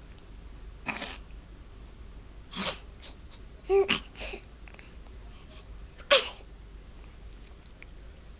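A baby sneezing and trying to sneeze: a handful of short, sudden breathy bursts, one with a brief little voice sound about four seconds in, and the sharpest, loudest sneeze about six seconds in.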